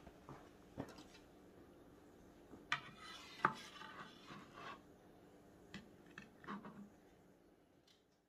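Faint knife-and-board handling: a long slicing knife knocking and scraping on a wooden cutting board and against the crusty bark of smoked beef short ribs. There are a few light knocks, then a rasping scrape with a sharp knock in the middle, then a few more taps that fade out near the end.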